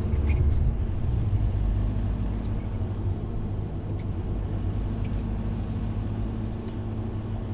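Steady low rumble of a car's engine and road noise heard from inside the cabin while driving, with a faint steady hum and a few light ticks.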